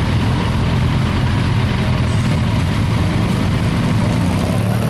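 Vehicle engines running steadily at idle, low-pitched and unchanging.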